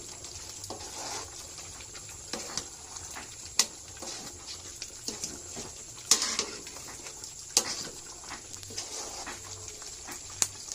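Occasional sharp clinks and knocks of cooking utensils and dishes over a steady hiss. The clinks come irregularly, a few seconds apart.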